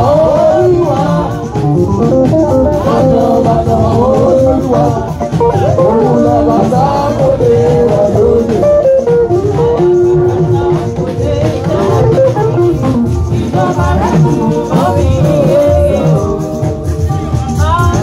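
Music with singing over guitar accompaniment, steady and loud throughout.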